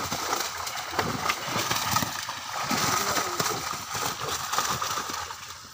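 Shallow water splashing and sloshing as a mesh fishing net is hauled in by hand, with a run of short wet slaps and faint voices in the background.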